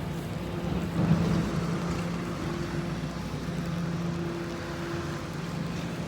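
Engine running with a steady low hum, a little louder for a moment about a second in.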